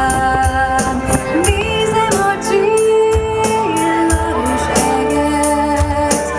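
Live pop band playing: women singing together over electric guitar, bass guitar, keyboards and drums, with a steady beat kept on the cymbals.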